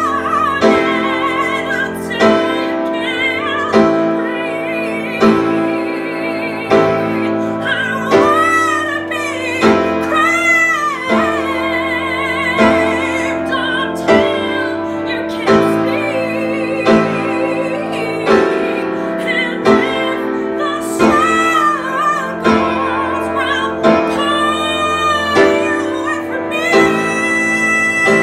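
A woman singing with vibrato over an upright piano, which plays sustained chords struck about every second and a half.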